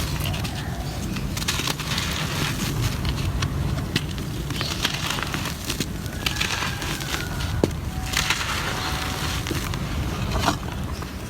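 Gritty cement chunks being crumbled and crushed, a continuous gritty crunching with many small sharp crackles and snaps.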